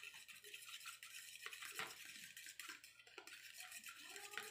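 Fork rapidly beating eggs in a plastic bowl: a quick, continuous run of scraping clicks with a couple of brief pauses.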